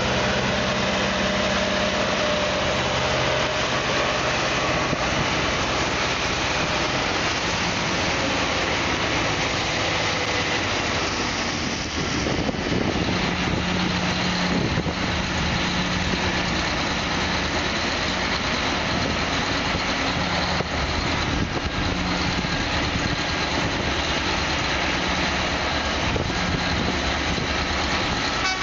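Large mining haul truck's diesel engine running steadily while its raised dump body is lowered, with a change in the engine note about twelve seconds in.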